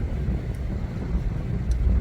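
Wind buffeting the microphone on a yacht under way at sea: a steady low rumble.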